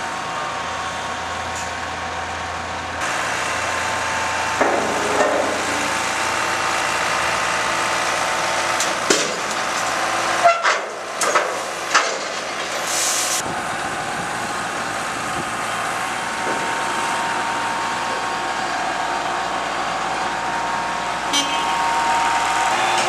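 Truck-mounted hydraulic crane's engine and pump running steadily with a droning whine, while steel barriers are lifted with a hydraulic grab. Several sharp metallic clanks come around the middle.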